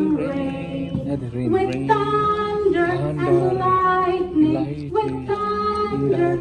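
A children's action song, led by a woman's singing voice with held, gliding notes.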